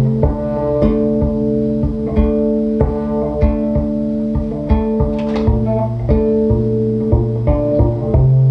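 NS Design CR6 electric cello played pizzicato in layered loops: a steady pulse of plucked notes, about two to three a second, over held low tones. A brighter, sharper stroke stands out about five seconds in.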